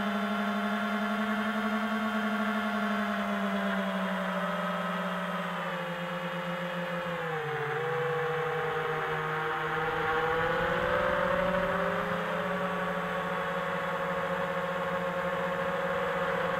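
Homebuilt quadcopter's T-Motor Velox 2306 2400 kV brushless motors and propellers whirring steadily in flight. The pitch dips about seven seconds in and climbs back a couple of seconds later.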